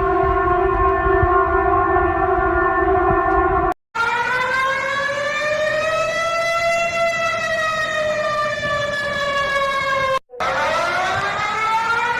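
Civil-defense outdoor warning sirens in clips with hard cuts between them. First a steady siren tone cuts off abruptly just before four seconds in. Then a siren winds up and slowly falls in pitch until it is cut off about ten seconds in, and another begins winding up.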